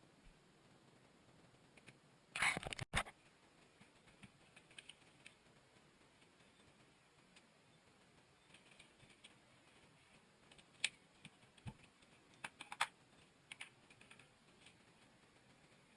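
Scattered sharp clicks and knocks, with a loud rattling cluster about two and a half seconds in and a run of lighter clicks near the end.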